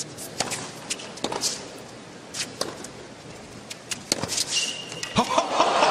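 Tennis ball struck back and forth by rackets in a rally on a hard court, a sharp pop every second or so, with a brief high squeak of tennis shoes on the court about four and a half seconds in. Near the end the crowd breaks into loud cheering and applause.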